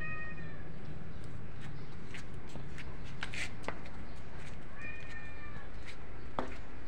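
A kitten meowing twice: a short arching meow right at the start and another about five seconds in, with scattered light clicks and taps between them.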